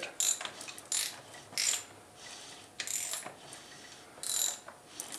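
Cam chains of a Honda CBR1000F engine clinking and rattling against the cylinder block as the crankshaft is turned by hand, in irregular short metallic bursts.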